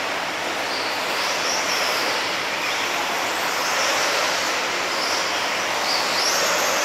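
Electric 1/8-scale RC buggies, Tekno EB48s among them, running laps on a dirt track. Their motors make high whines that rise and fall as they speed up and slow down, over a steady din of the cars echoing in the hall.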